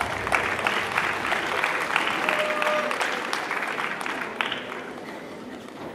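Arena crowd applauding, a dense crackle of clapping that dies away over the last second or two. A brief shout rises from the crowd about two seconds in.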